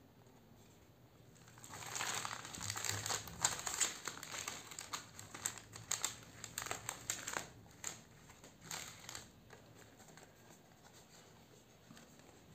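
Plastic courier mailer bag crinkling and rustling as it is handled. The crinkling starts about two seconds in, runs densely for several seconds, thins to a few scattered crackles, and dies away near the end.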